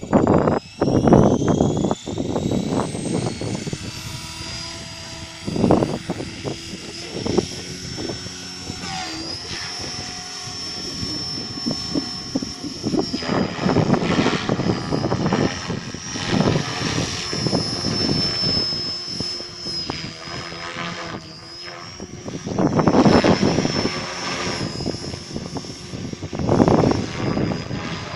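Gaui X5 electric RC helicopter: the motor and rotor whine rises as the head spools up in the first few seconds, then holds at a steady high pitch in flight. Loud low rushing swells come and go, the strongest about a second in and near the end.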